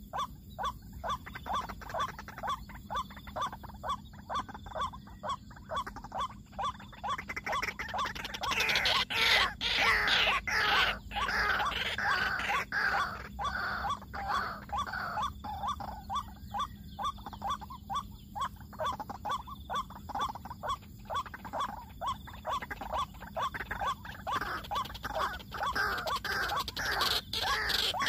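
White-breasted waterhens calling, a long run of repeated harsh 'kruak-kruak' notes at about two a second, growing louder and busier with rising and falling notes from about a third of the way in.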